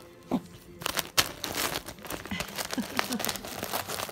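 Gift wrapping paper crinkling and tearing as a Pomeranian paws and bites at a wrapped present, a dense run of irregular rustles and crackles that picks up about a second in, the sharpest just after.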